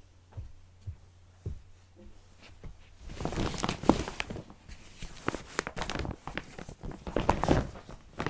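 Footsteps and the rustling and clatter of someone moving about a small room and handling things: a few soft thumps at first, then about five seconds of busier rustling and knocking.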